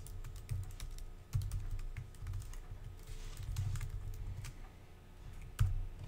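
Typing on a computer keyboard: a run of quick, irregular key clicks.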